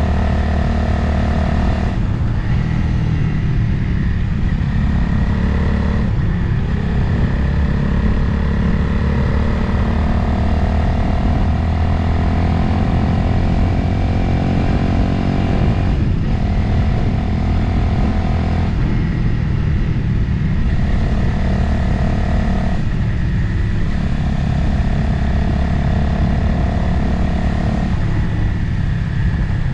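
Motorcycle engine running under way, heard from the rider's position with wind noise over it. The engine note breaks briefly and changes pitch several times.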